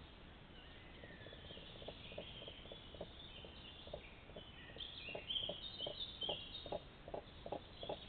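Common crane giving a rapid series of short, low calls, about three or four a second, growing louder in the second half. Songbirds sing high above it.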